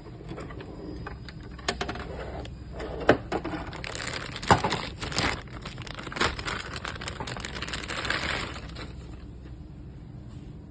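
Handling noise: irregular clicks and knocks of small hard objects, with rustling and crinkling that thins out about nine seconds in.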